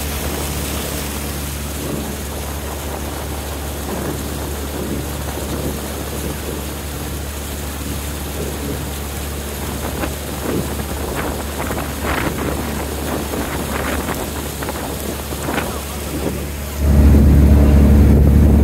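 Engine of a wooden motorboat running steadily under way, with water rushing and splashing against the hull and wind noise on the microphone. In the second half there are occasional sharper splashes. Near the end the engine noise suddenly gets much louder and stronger in the low range.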